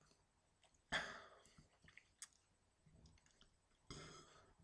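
Near silence in a small room, broken by a faint short noise about a second in and a couple of soft clicks.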